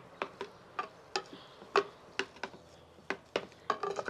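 Metal potato masher knocking against a terracotta clay bowl while mashing boiled potatoes: sharp, irregular clacks, about three a second.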